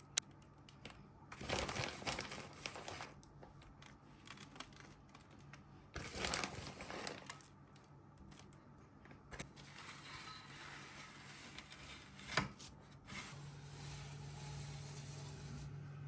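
Intermittent bursts of crinkling and scraping kitchen handling noise, with a couple of sharp clicks, one about twelve seconds in.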